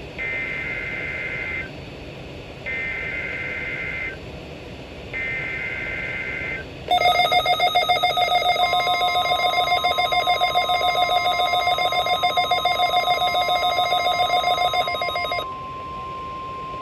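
NOAA Weather Radio weekly test alert. Three short bursts of SAME digital header data, then a loud pulsing electronic alarm about seven seconds in, with the steady 1050 Hz warning alarm tone starting under it and running on alone near the end.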